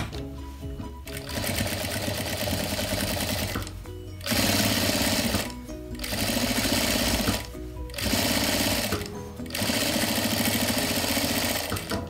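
Jack F4 industrial lockstitch sewing machine stitching in about five short runs with brief stops between them, sewing a line of topstitching along a fabric binding.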